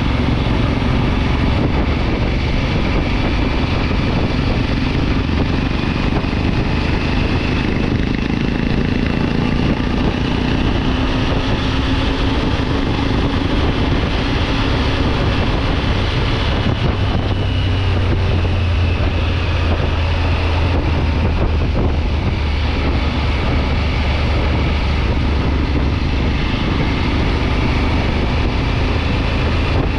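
Triumph Tiger 900 GT Pro motorcycle's three-cylinder engine running steadily while riding, mixed with a constant rush of wind over the microphone.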